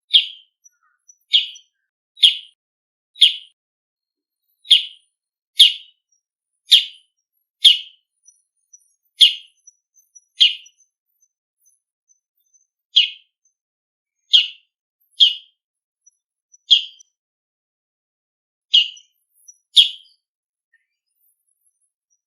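Bull-headed shrike giving its noisy autumn calls: about sixteen short, sharp notes, roughly one a second, with a pause of about two seconds partway through.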